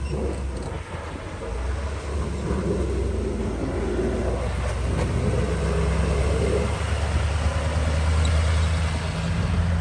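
Engine of a snowplowing vehicle running steadily, a low even hum with little change in level.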